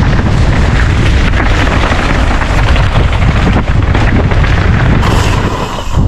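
Mountain bike riding fast down a dirt trail: loud wind rush on the microphone over tyres rolling across dirt and leaf litter. The sound changes abruptly about a second before the end.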